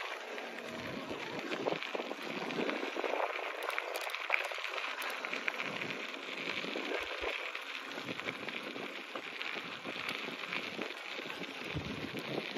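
Bicycle tyres rolling on a dirt and gravel path, a steady crackle, with wind gusting on the microphone now and then.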